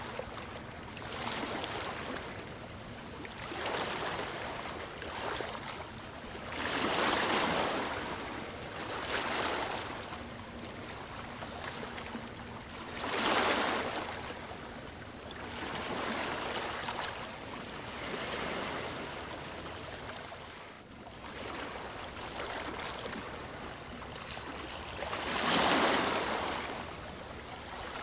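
Ocean waves washing in, a steady wash of water that swells and fades every few seconds, with bigger waves breaking about a quarter, halfway and near the end.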